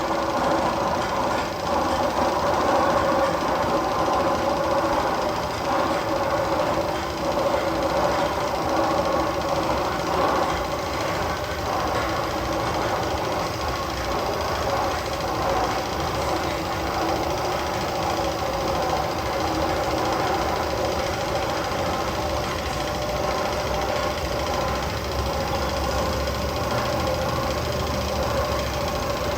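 Roller coaster tunnel sound effect from speakers: a steady machine-like rumble with a held drone. The low rumble grows stronger near the end.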